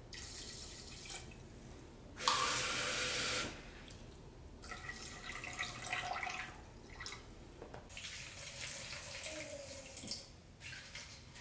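Water poured in several runs from a plastic measuring cup into a rice cooker's inner pot of rice and water, with one louder, fuller gush a couple of seconds in. Near the end, a kitchen tap runs over a wooden bowl in the sink.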